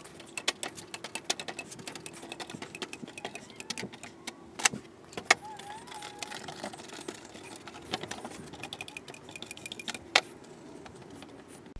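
Aluminium pipes being laid and pressed onto a corrugated iron sheet while a caulking gun is worked: a dense run of light clicks and knocks, with a few sharper knocks, over a faint steady hum.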